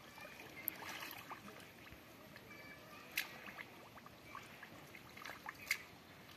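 Faint sloshing and trickling of shallow muddy pond water as bare hands grope through the mud for fish, with a few short splashes.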